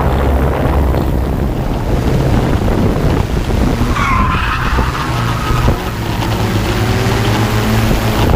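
Steady hum of a Yuneec Typhoon quadcopter's motors and propellers mixed with drift-car engine noise, and a drifting car's tires squealing briefly about four seconds in.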